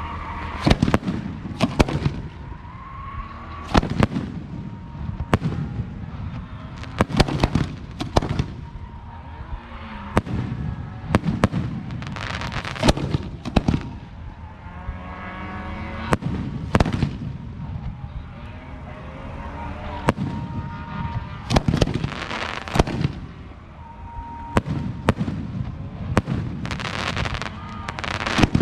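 Aerial fireworks show going off in rapid succession: sharp bangs and booms about every second, with rumble and echo between them.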